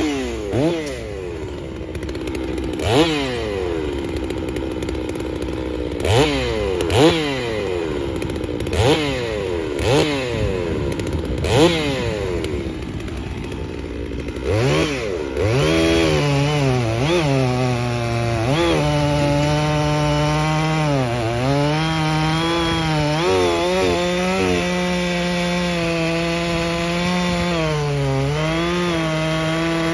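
FarmMac F660 chainsaw, a Stihl 660 clone with a big two-stroke engine. It idles with a string of short throttle blips, then about halfway through is held at full throttle cutting into a large log, its pitch dipping and recovering under the load.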